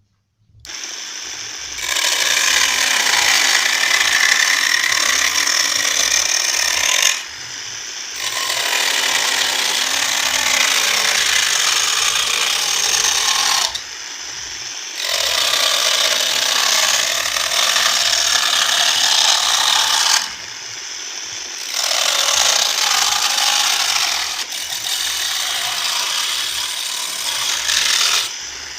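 Homemade mini chainsaw cutting into wood in four passes of several seconds each, easing off briefly between cuts.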